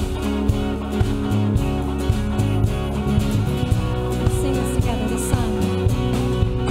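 Live worship band playing a slow song: strummed acoustic guitars, bass and drums keeping a steady beat of about two strokes a second, with a woman singing over it.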